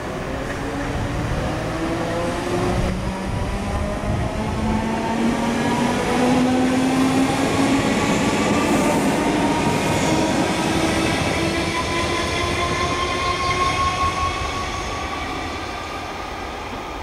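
Class 313 electric multiple unit accelerating away, its traction motors whining in several tones that climb steadily in pitch over track rumble. The sound grows louder, then fades over the last few seconds as the train draws away.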